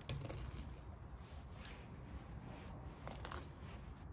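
Fillet knife slicing along a perch on a wooden cutting board, in a few short cutting strokes.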